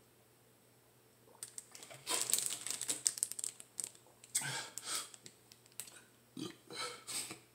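Thin plastic gallon water jug crinkling and crackling in the hands as it is drunk from, in three bursts beginning about two seconds in.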